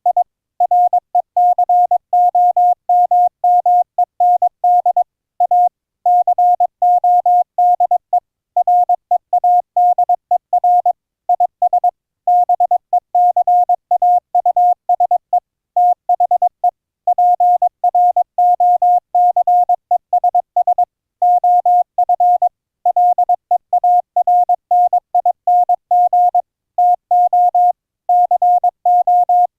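Morse code (CW) sent as a single steady beep keyed rapidly on and off in dots and dashes, with short pauses between words. The tone is CW audio that has been encoded with the ADPCM codec and streamed over IP.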